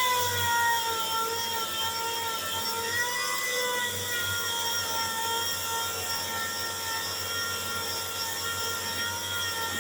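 Handheld power sander running at a steady high whine while sanding paint off a car body panel down to bare metal, its pitch wavering slightly as it is pressed against the metal.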